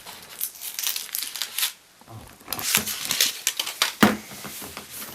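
Foil wrapper of a Kinder Surprise chocolate egg crinkling and tearing in spurts as it is unwrapped by hand, with a short pause about two seconds in and a sharp click about four seconds in.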